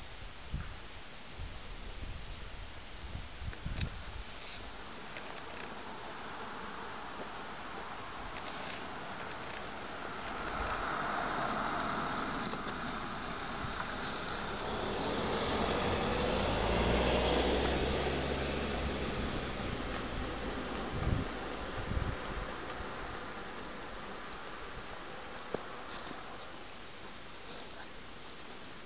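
Steady, high-pitched chorus of crickets trilling without a break. A single sharp click about twelve seconds in.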